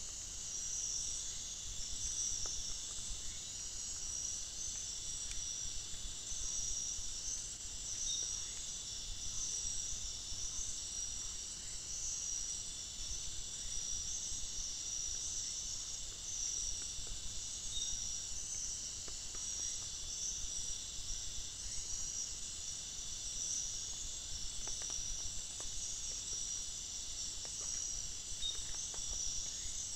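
Nighttime forest insect chorus: a steady, high-pitched trilling of many insects that pulses without a break.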